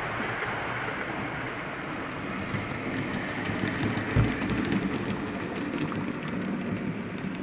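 A model train of a red Rhaetian Railway narrow-gauge passenger train running on the layout: a steady rolling hiss that grows fuller from about three seconds in, with light clicks of wheels over the rail joints and a single knock about four seconds in.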